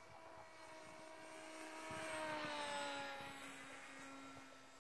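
HobbyKing Bixler 2 electric RC model plane making a low pass: the whine of its electric motor and pusher propeller swells to its loudest about two to three seconds in, drops in pitch as the plane goes by, then fades.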